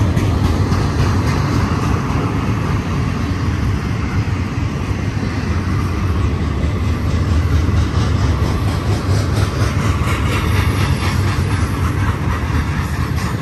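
Double-stack intermodal container cars rolling past, a steady rumble of steel wheels on the rails with faint, regular clicks.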